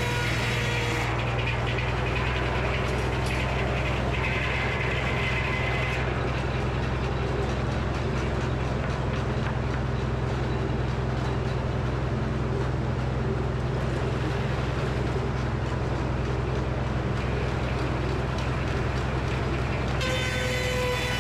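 Frick circular sawmill running under steady engine power. About a second in, the blade's free-spinning whine gives way to a noisier rasp as it cuts through a black walnut log, and the whine returns near the end as the cut finishes.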